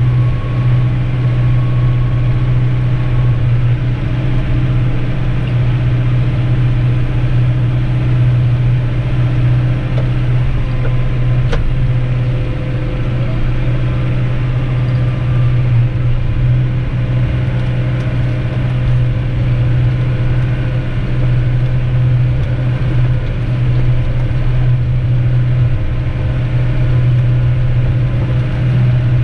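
Tractor engine running steadily while driving a rear-discharge muck spreader, heard from inside the cab as a loud, even, low hum, with a single sharp click about twelve seconds in.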